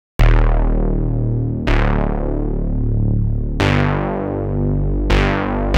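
Background music starting after a brief silence: sustained keyboard chords, struck four times, each ringing out and fading.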